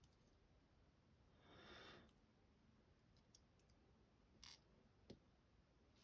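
Very faint handling of small metal lock parts: a soft scrape about a second and a half in, then light scattered clicks and two sharper clicks near the end as pins and parts of a tier-key lock are taken out.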